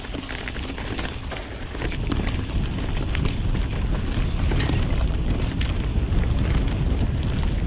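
Wind buffeting an action camera's microphone and tyres rumbling over a dirt trail as a mountain bike descends at speed, with scattered clicks and knocks of the bike rattling over bumps. It gets louder about two seconds in as the pace picks up.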